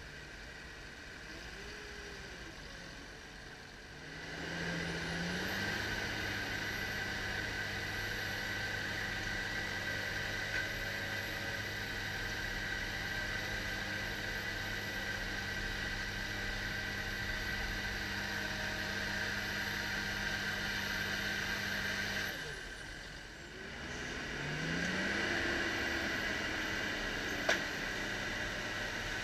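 Diesel engine of a Ponsse Ergo harvester bogged in mud, revving up about four seconds in and held at high, steady revs under load as the machine works to free itself. The revs drop briefly about two-thirds of the way through, then climb again, with one sharp click near the end.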